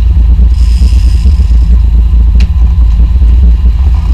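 Sportfishing boat's engines running with a steady low rumble.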